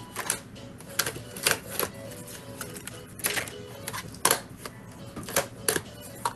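Irregular clicks and knocks of makeup palettes and cases being handled, shifted and set down on the desk. There are about fifteen sharp taps, unevenly spaced, as things that had dropped are put back in order.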